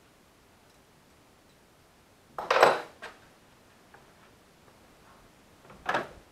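Two short clatters of metal hand tools being handled and set down, the first about two and a half seconds in and the louder, the second near the end.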